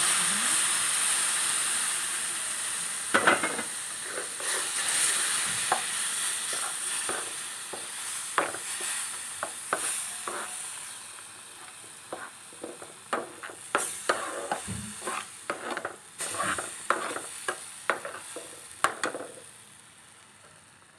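Milk hitting roasted semolina (suji) in a hot pan, sizzling loudly at first and dying down gradually. A perforated metal ladle stirs through it, clicking and scraping against the pan at irregular intervals.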